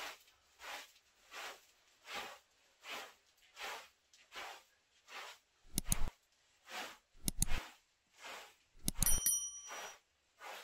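Short-handled straw broom sweeping a carpet in steady strokes, roughly three swishes every two seconds. Partway through come two sharp clicks, then a click and a short bell ding near the end, the sound effects of a subscribe-button animation.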